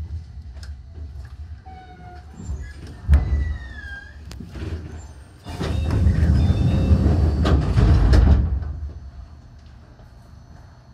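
Enshu Railway electric train pulling out, its motor drive giving stepped and gliding whining tones in the first few seconds. Just past the halfway point comes a loud rushing noise lasting nearly three seconds, which then fades to a low hum.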